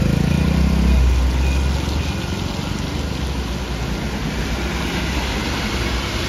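Road traffic on a wet street: a low vehicle hum is loudest in the first couple of seconds, then gives way to a steady hiss of tyres on the rain-soaked road as cars and a bus pass close by.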